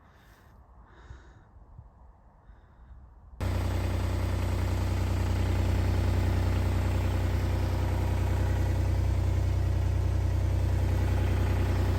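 A farm tractor's engine running steadily at idle. It comes in all at once about three and a half seconds in, after a few faint sounds.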